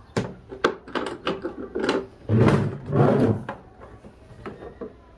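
Plastic parts of a portable travel toilet being handled: a run of clicks and knocks, then two louder sliding, rattling stretches between about two and three and a half seconds in.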